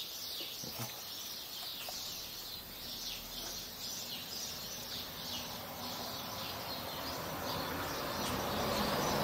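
Small birds chirping over and over, about two short calls a second, with a rushing noise that grows louder near the end.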